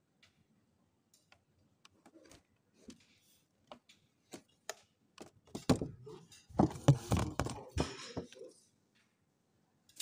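Handling noise: scattered light clicks and taps, then a cluster of louder knocks and rustling from about five and a half to eight and a half seconds in, as things around a boxed cake are moved.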